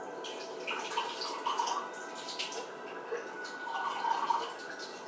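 Dishes being washed at a kitchen sink: faint, scattered clinks and taps with soft splashes of water.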